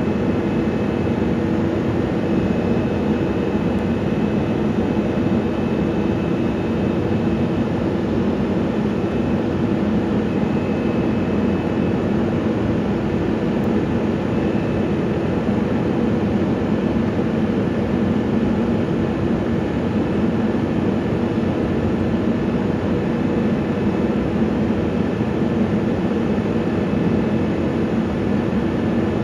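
Rear-loader garbage truck's diesel engine and hydraulic packer running as the Leach packer body cycles: a steady mechanical hum with several held tones and no breaks.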